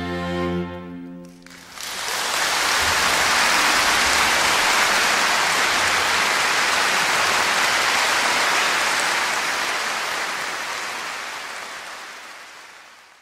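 Bowed string music ends about a second and a half in. A loud, even rushing noise follows and slowly fades out.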